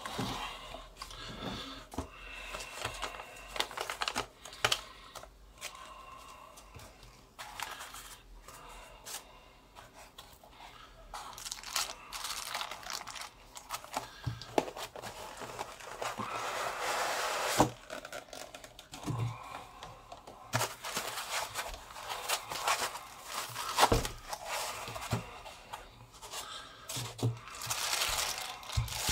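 Paper and plastic packaging handled by hands: a folded instruction leaflet and a cardboard box, then plastic wrap peeled off a neodymium magnet. The sound is continuous rustling and crinkling, with scattered clicks and a few short knocks.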